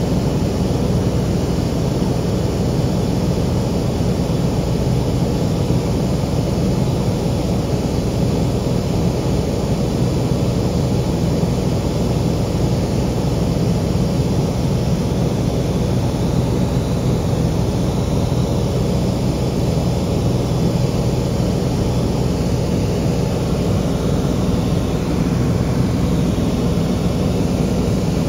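Aircraft engine running steadily, heard from inside the cabin: a constant low hum under a broad hiss of engine and air noise.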